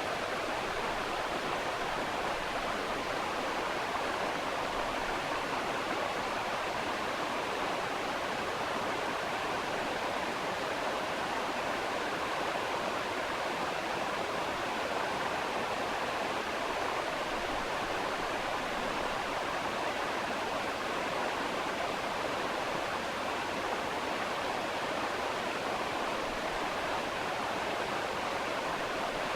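Steady, even rushing noise like a waterfall or stream, unchanging throughout, with no scaler whine or other distinct sounds.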